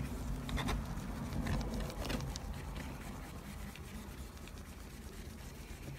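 Flat brush spreading Snow Cap opaque white alcohol ink across paper: faint soft scratching brush strokes, with a couple of light ticks.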